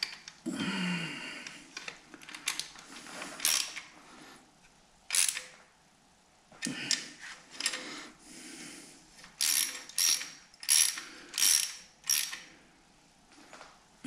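Socket ratchet clicking as bolts on an engine's timing chain assembly are turned. It comes in scattered short strokes, then five quick strokes in a row near the end, with knocks of the tool against the metal in between.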